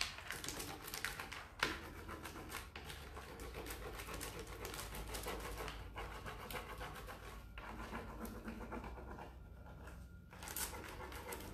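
Continuous scratchy rubbing of a plastic-backed decor transfer sheet being rubbed down against a deeply grooved barnwood board, with a few sharper scrapes.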